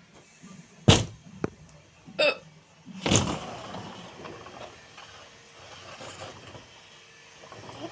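A person hiccuping: three sharp, short hics, about a second in, just past two seconds and just past three seconds.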